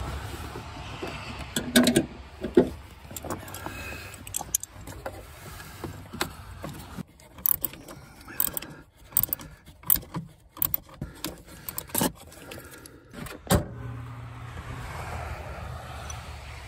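A small wrench working the 12-volt battery's terminal bolt as the cable is reconnected: a string of irregular metal clicks and clinks.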